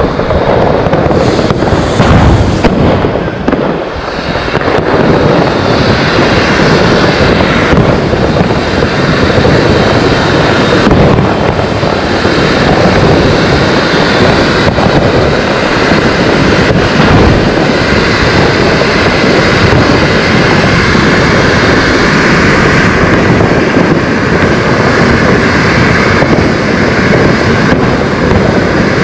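Large ground fountain firework, a 'volcano' rated for a 6-metre spark column, burning with a steady dense hiss and rush of sparks, broken by occasional sharp cracks.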